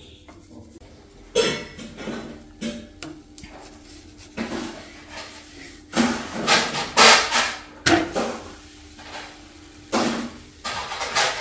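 Cooking utensils knocking and scraping on a flat iron dosa pan while wheat dosas are made: a string of separate knocks and scrapes, the busiest run about six to seven and a half seconds in.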